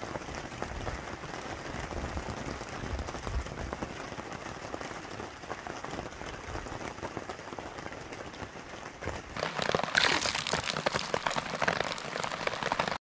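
Steady rain falling. About nine seconds in, a louder, denser spell of raindrops hitting close by takes over, and it cuts off abruptly at the end.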